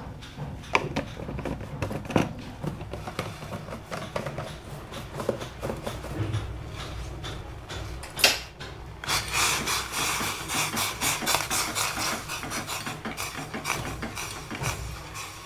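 Steel spoon and pot sounds: a few scattered clinks, a sharp clank about eight seconds in, then quick rhythmic scraping as a spoon stirs tea in a steel pot.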